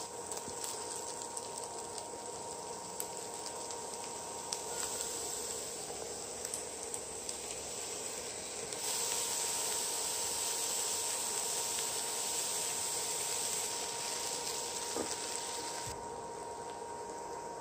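Minced mushroom and meat sizzling in a nonstick frying pan as a spatula stirs and scrapes it. The sizzle gets louder about nine seconds in, when shredded and diced pumpkin goes into the pan and is mixed through.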